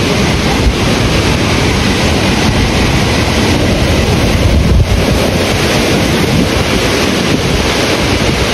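Hurricane wind and heavy rain lashing trees, with strong wind buffeting on the microphone, a loud unbroken rush that swells in a stronger gust about five seconds in.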